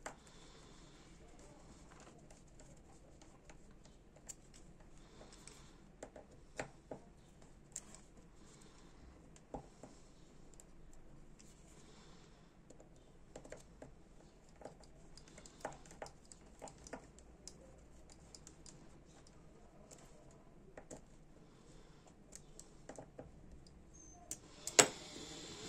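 Small screwdriver working on the metal body of a Dupont L1 lighter: faint, irregular light clicks and scrapes of steel on metal, with one louder sharp click near the end.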